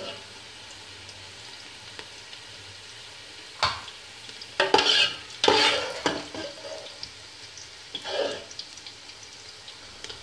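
Julienned carrots and almonds sizzling steadily in hot oil in an aluminium pot. A metal slotted spoon stirs and scrapes through them several times, lifting the fried carrots out of the oil.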